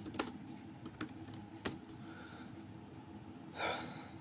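A few sharp key presses on a MacBook Pro laptop keyboard, spaced apart in the first two seconds, then a short breathy hiss about three and a half seconds in, the loudest sound here.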